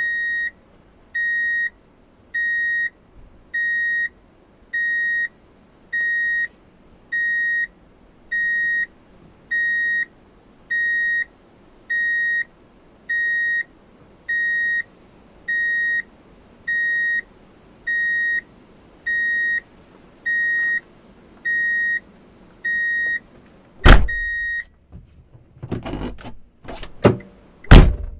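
A vehicle's reverse-gear warning beeper: one high beep repeating about once a second, some twenty times. The beeping stops with a loud thump near the end, followed by a few clicks and knocks.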